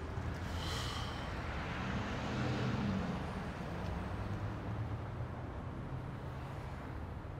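Street traffic ambience: a steady low rumble of road traffic, with a passing vehicle swelling loudest around two to three seconds in. A brief high sound is heard under a second in.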